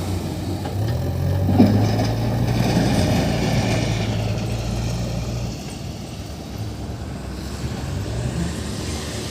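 Heavy diesel engine running, revving up about a second in, holding the higher speed, then dropping back about halfway through. There is one short sharp knock about one and a half seconds in.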